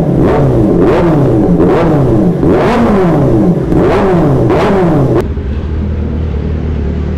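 Kawasaki ZX-10R inline-four with an SC-Project aftermarket exhaust being revved in short blips, about one a second, the pitch jumping up and sliding back down each time. A bit over five seconds in it cuts suddenly to the steady low rumble of the bike running at low speed.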